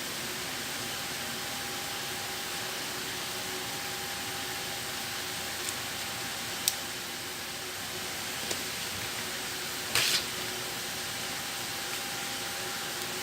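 Steady hiss with a few faint clicks and one short crinkling rustle about ten seconds in, from banana leaves being handled and folded around pepes parcels.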